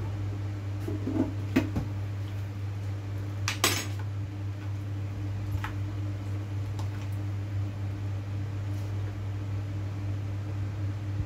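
A few scattered clinks and knocks of kitchenware, a metal spoon set down on a cutting board and a plastic bowl being handled, the loudest about three and a half seconds in, over a steady low hum.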